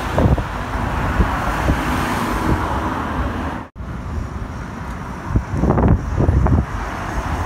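Road traffic running steadily on a street, with wind gusting on the microphone in irregular low thumps. The sound breaks off for an instant about halfway, where the recording cuts.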